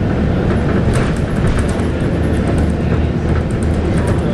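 Scania K280UB bus's 9.3-litre five-cylinder diesel running steadily, heard from inside the bus as a low rumble with light rattles and clicks from the body.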